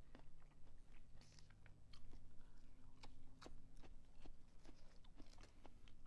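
A person chewing crunchy fried fast food, with many small crunches and wet mouth clicks at irregular moments.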